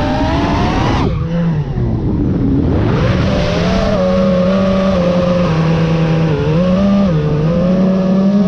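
FPV freestyle quadcopter's brushless motors and propellers whining, the pitch following the throttle. The pitch drops sharply about a second in, then holds fairly steady with small up-and-down steps.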